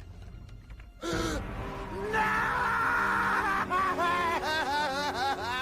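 Cartoon soundtrack: a sudden vocal sound and held music, then from about four seconds in a cartoon bird character laughing, a quick run of bouncing rising-and-falling notes about three a second.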